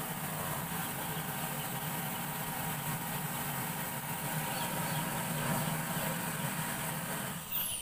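Ristarch XDFT-50 diesel forced-air heater running steadily, a constant even noise with a low hum, which drops away near the end.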